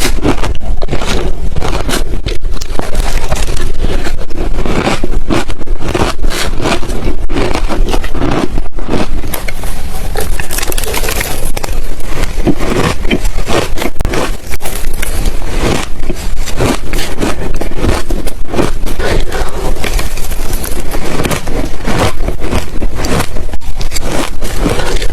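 Ice being chewed and crunched close to the microphone, a steady run of dense, rapid, sharp crunches without a pause.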